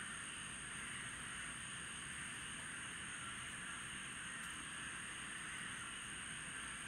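Steady chorus of night animals: a constant high-pitched ringing over an even hiss.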